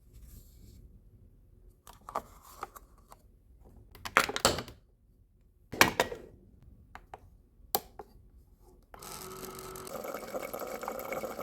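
A few separate knocks and clatters of objects being handled, then from about nine seconds in a steady rush of running water, as when a tap runs or a drink is poured.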